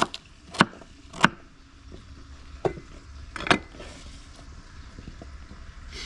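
Knife chopping vegetables on a cutting board: five sharp knocks at uneven spacing in the first three and a half seconds.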